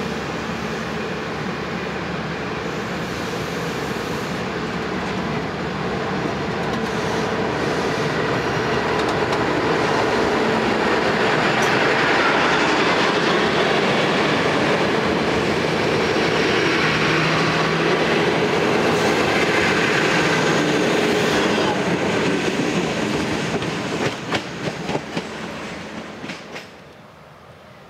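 NSW TrainLink Xplorer diesel multiple unit running past along the platform, its underfloor diesel engines and wheels on the rails growing louder to a peak midway, then easing off. Near the end there are a few sharp wheel clicks over rail joints before the sound drops away.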